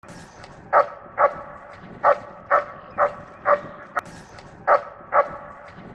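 A dog barking repeatedly and loudly, eight barks mostly in pairs about half a second apart. There is a single sharp click about four seconds in.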